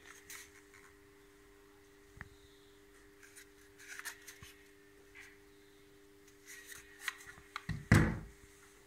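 Handling noise of a Bosch GWS 18 V-LI cordless angle grinder body, without battery, being turned over in the hand: light rubs and clicks. Near the end comes a loud thump as it is set down on a wooden workbench. A faint steady hum runs underneath.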